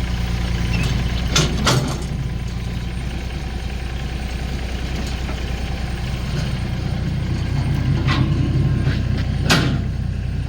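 Massey Ferguson GC2400 subcompact tractor's small three-cylinder diesel idling steadily, with a few short sharp knocks twice early on and twice near the end.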